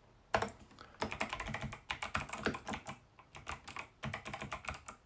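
Clicky mechanical keyboard, an 8BitDo Retro Mechanical Keyboard, being typed on in quick runs of key clacks, several strokes a second, with a short pause about halfway through.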